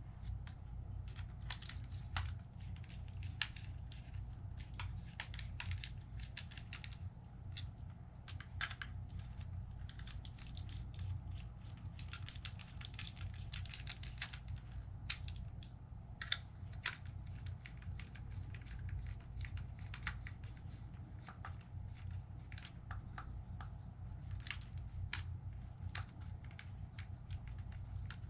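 Irregular small clicks and ticks of hand work on a drone remote controller's plastic case: a small screwdriver driving the back-cover screws and the case being handled. A steady low hum runs underneath.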